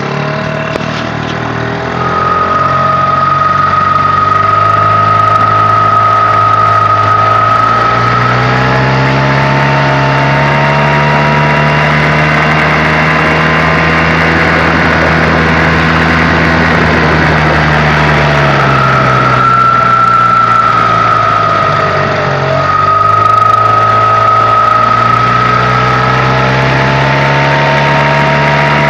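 Tohatsu 5 hp two-stroke outboard motor running with a steady high-pitched whistle over the engine note. The whistle sounds at the lower engine speed, stops while the engine is revved up for several seconds, and comes back as the revs drop. The owner does not know the cause of the whistle.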